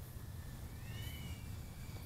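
Faint high whine of the iFlight TurboBee 77R micro whoop's brushless 1103 motors as it flies at a distance, gliding up and back down in pitch about halfway through. Underneath is a low rumble of wind on the microphone.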